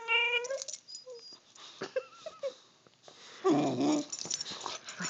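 Boxer dog vocalising: a high, wavering whine tailing off just after the start, a few short whimpers about two seconds in, then a louder, lower, rougher moan about three and a half seconds in.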